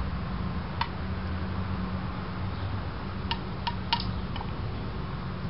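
A spoon clinking and tapping against a small bowl as a child scoops yogurt: one click about a second in, then a quick run of four or five clicks a little past halfway, over a steady low hum.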